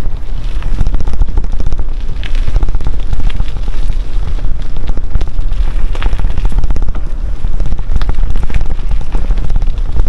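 Loud wind buffeting the microphone: a steady low rumble with dense crackling.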